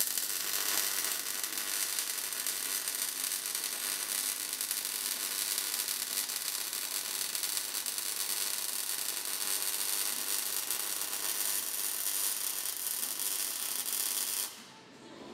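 MIG welding arc on a steel frame, crackling steadily, then cutting off about a second before the end.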